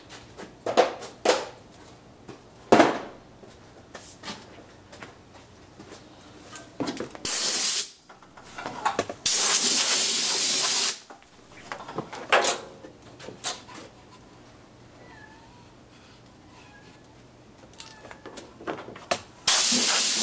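Three short bursts of hissing spray, the middle one about a second and a half long, among sharp clicks and knocks of parts and tools being handled.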